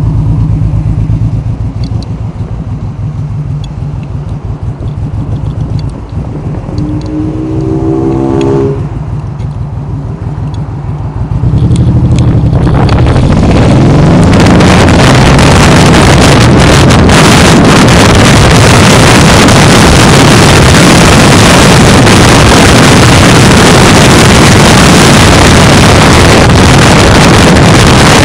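Cruiser motorcycle engine idling with a low pulsing beat, with a brief rising tone about eight seconds in. About twelve seconds in the bike pulls away and speeds up, and loud wind buffeting on the microphone then covers most of the engine.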